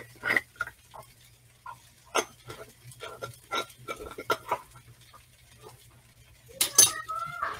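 Cooking at the stove: scattered light clicks and taps from a skillet of onions and spices being stirred with a spatula, over a low steady hum. Near the end comes a brief high-pitched sound with a rising tone.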